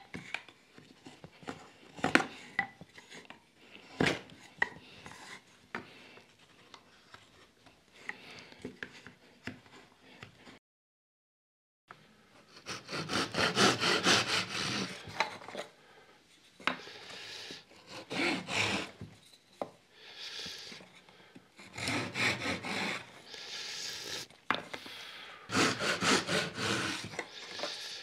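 Thin wooden lattice bars clicking and knocking against each other as they are handled on a workbench. After a short break comes a hand saw cutting the tenon shoulder of a lattice bar held in a plywood saw guide, in runs of quick strokes that last one to a few seconds each.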